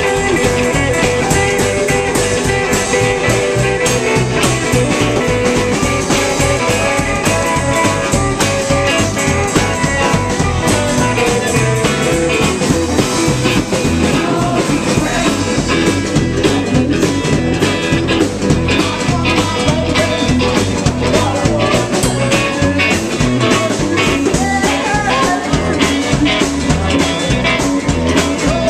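Live rockabilly band playing: electric guitar takes the lead over upright bass and drums, and a woman's lead vocal comes in toward the end.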